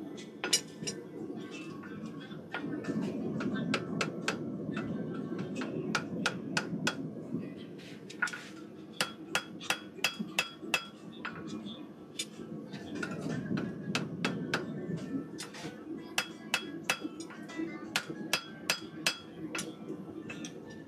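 Hammer blows on a red-hot horseshoe against an anvil, coming in quick runs of ringing metal strikes with short pauses between them, as the shoe is forged to shape.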